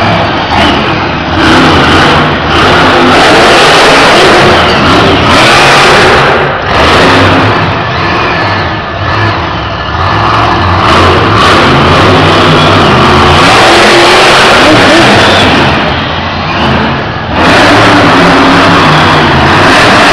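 Monster trucks' supercharged V8 engines revving hard, rising and falling with the throttle, loud enough to overload the recording. The sound eases briefly about six, nine and seventeen seconds in.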